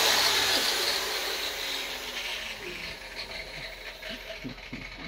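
Large Bosch angle grinder winding down after its trigger is released, its whirr fading away over the first three seconds.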